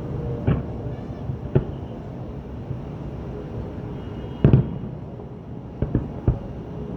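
Aerial fireworks shells bursting: about five separate booms over a steady background hum, the loudest a double bang about four and a half seconds in, with two quick ones near the end.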